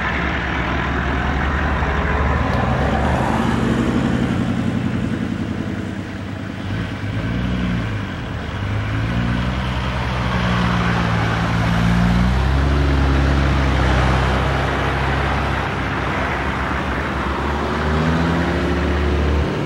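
Toyota LandCruiser 4WDs driving through soft beach sand, their engines running under load with the pitch rising and falling as they rev, over a steady rush of tyre and wind noise; the nearest vehicle comes close near the end.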